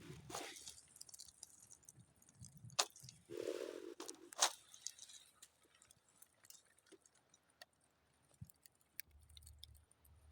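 Small campfire crackling, with scattered sharp pops and snaps and a brief louder rush of noise about three and a half seconds in.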